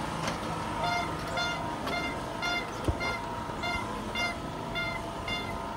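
A vehicle's electronic beeper sounds short, even beeps about twice a second over steady street noise. A single sharp knock comes about three seconds in.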